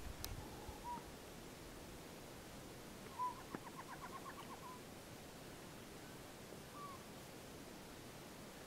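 Northern pygmy owl calling: a short whistled note about a second in, then another note running straight into a quick string of about ten short, evenly spaced notes, and a single note near the end.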